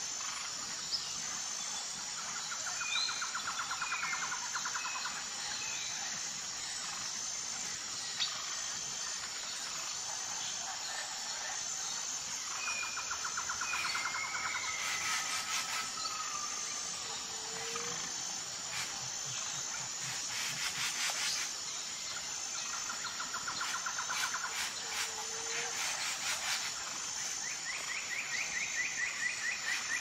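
Outdoor nature ambience: birds chirping and calling in short gliding notes, several trilling calls lasting a couple of seconds each, and a high, even pulsing of insects underneath.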